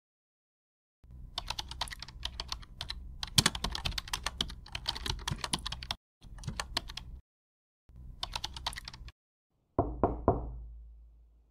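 Rapid typing on a laptop keyboard in three bursts, then two heavy knocks on a wooden door about ten seconds in, each followed by a low booming tail that fades away.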